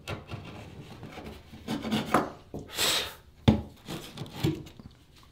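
A metal blade scraping old caulk off the rim of a bathtub where it meets the wall, in short irregular strokes. There is a sharp click about three and a half seconds in.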